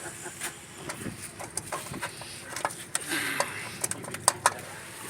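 Scattered sharp clicks and knocks of hand tools and metal parts being handled, irregular and several a second at times.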